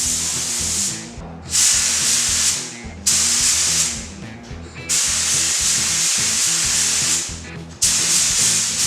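Paint spray gun hissing in about five bursts as the trigger is pulled and released, each lasting about one to two seconds, while a coat of sealer or paint goes onto the parts. Background music plays underneath.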